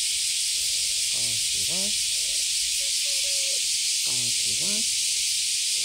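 A steady, loud high-pitched hiss runs throughout, with a pair of short pitched calls, one falling and one rising, repeating about every three seconds.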